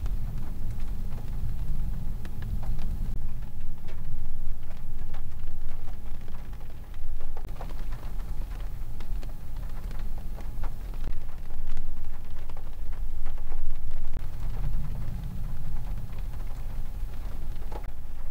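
Field recording of rain falling: a steady patter with many individual drops ticking sharply, over a low rumble.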